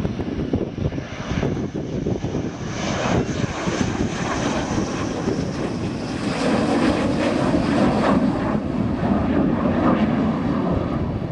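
McDonnell Douglas F-15 Eagle's twin Pratt & Whitney F100 turbofans on landing approach with gear down: a continuous jet rush that builds over the first few seconds and is loudest in the second half as the jet passes.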